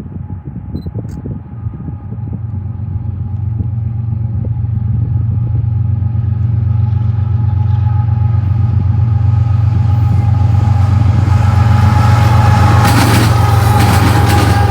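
GE ES44AC diesel locomotive approaching under power: a steady low engine drone with a faint whine on top, growing louder, with wheel clatter on the rails starting near the end as it draws close.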